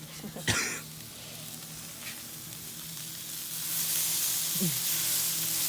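Beef burger patties sizzling on a hot charcoal grill grate, the sizzle growing louder about three and a half seconds in. A short knock comes about half a second in.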